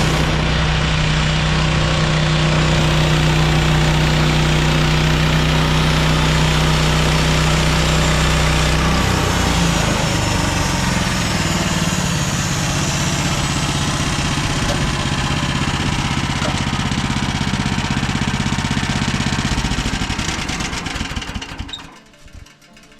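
Band sawmill's gas engine running steadily; its pitch shifts about nine seconds in and it carries on, then winds down and stops near the end.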